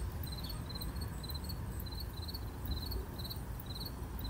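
Crickets chirping: short pulsed chirps, about two to three a second, over a low steady background rumble.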